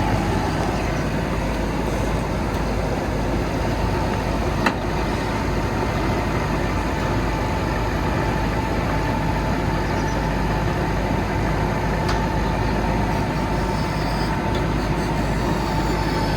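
Vögele Super 1303-3i asphalt paver's diesel engine running steadily, with a constant whine over the rumble and a single sharp click about five seconds in.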